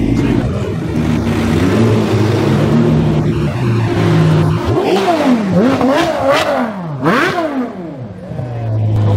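Supercar engines running steadily at low revs, then a Ferrari 599's V12 revs hard about three times, its pitch sweeping sharply up and down, as it pulls away.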